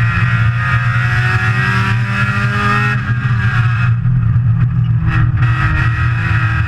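Saturn S-Series four-cylinder race car's engine heard from inside the cockpit, pulling with its pitch climbing for about three seconds, easing off about four seconds in and coming back on a second or so later.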